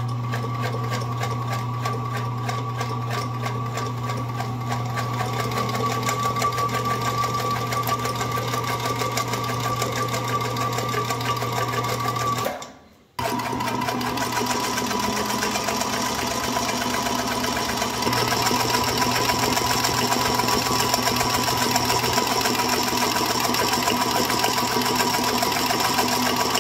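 1945 Singer 221-1 Featherweight sewing machine running at a steady speed, its motor giving a steady whine as it stitches through fabric. It stops briefly about halfway, then runs steadily again.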